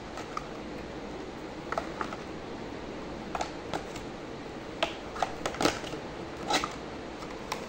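Small acrylic paint jars clicking and knocking as they are packed back into their cardboard box by hand. The light clicks come irregularly, about a dozen, over a steady background hiss.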